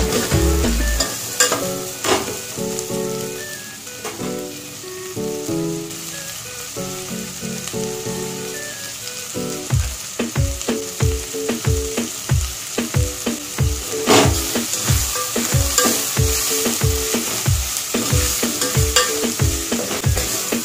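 Chopped vegetables sizzling in oil in an aluminium pot as they are stirred with a metal spatula, with occasional scrapes against the pot. Background music plays over it, with a steady beat coming in about halfway.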